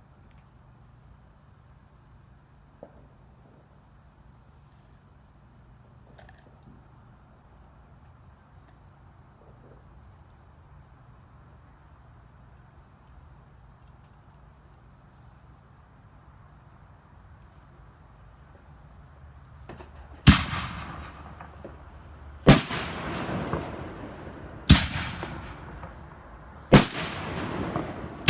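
Aerial fireworks going off after a lull: four loud bangs about two seconds apart, starting about twenty seconds in, each trailing off in a rumble, with another bang right at the end.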